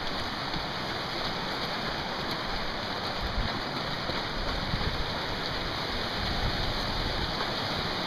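A creek rushing steadily, with a low, uneven rumble from wind and handling as the camera is carried at a run.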